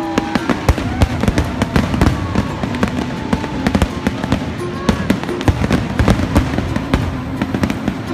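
Aerial fireworks bursting overhead in rapid succession: a dense, continuous string of sharp bangs.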